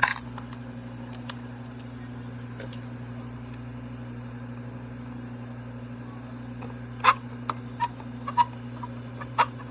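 Scattered light clicks and taps of small parts being handled while screws go back into the animated Santa figure's housing, a few early on and more in quick succession in the last few seconds, over a steady low hum.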